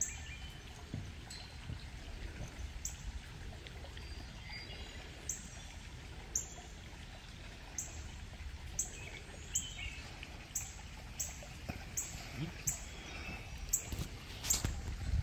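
Outdoor ambience of water trickling steadily, with a bird giving short, high chirps again and again, about once a second.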